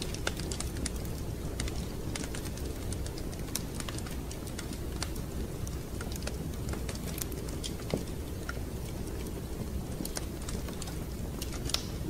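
Wood fire in a fireplace crackling: irregular sharp pops and snaps over a steady low rumble, with a louder pop about eight seconds in and another near the end.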